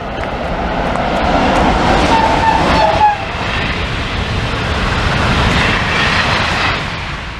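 ETR 252 "Arlecchino" electric train passing at speed: a rushing rumble that builds over the first two seconds, stays loud while the carriages go by, and fades near the end.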